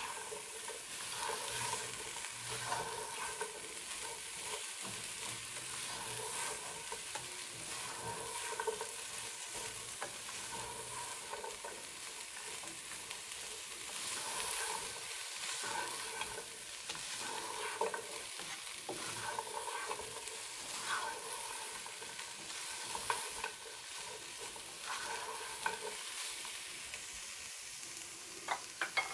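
Shredded vegetables and chicken sizzling as they stir-fry in a nonstick pot, with a spatula scraping and tossing them. The stirring stops near the end.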